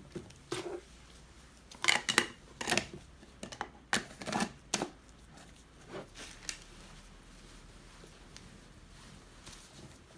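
Plastic jar lids being pressed and snapped onto large glass jars: a cluster of sharp plastic clicks and knocks, densest between about two and five seconds in, then a couple of softer ones, after which only faint background remains.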